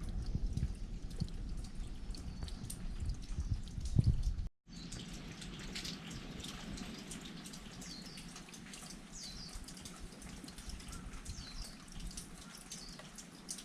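Water dripping: many small drops falling as short, high plinks over a faint hiss. Before a sudden cut about four and a half seconds in, there is low rumbling with a few knocks.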